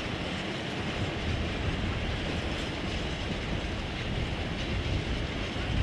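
Empty flat wagons of a freight train rolling past at a steady speed, their wheels rumbling and clattering over the track.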